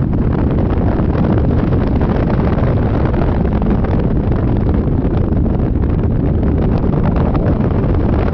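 Steady, loud wind rush buffeting the microphone on a Yamaha Majesty 400 scooter at riding speed.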